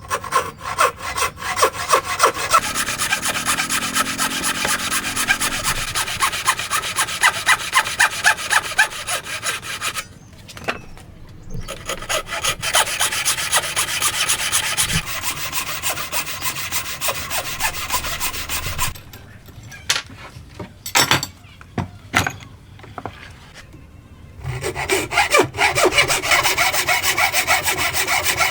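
Hand saw cutting wood in quick, even strokes, in three runs separated by short pauses. A few sharp knocks fall in the second pause.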